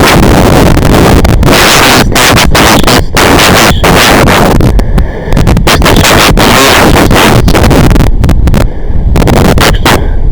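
Loud, distorted crackling noise at near full level, broken by sudden brief dropouts: the recording's sound interference, which swamps whatever else is there.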